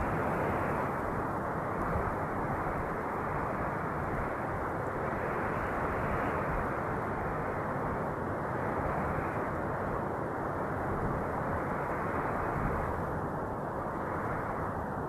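Wind blowing steadily, a dense rushing noise weighted toward the low and middle range that swells and eases slightly every few seconds.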